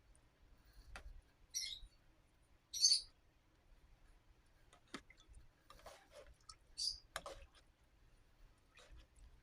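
A few short, hissy shakes of a seasoning container over the pot, with light clicks and taps as the containers are handled.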